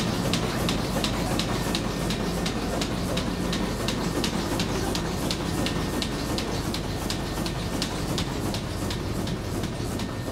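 Steamship's steam engine running at a steady speed: an even, fast mechanical ticking, about four a second, over a constant low rumble.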